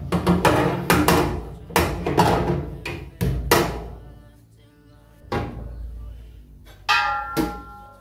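Metal pan-support grate of a gas cooker being handled and set down onto the hob: a quick run of clanks and rattles over the first few seconds, then two more knocks, the last one ringing briefly. Background music plays underneath.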